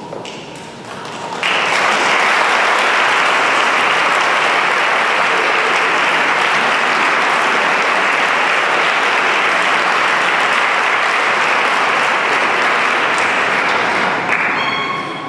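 Audience applauding, a steady wash of clapping that starts about a second and a half in and fades out near the end.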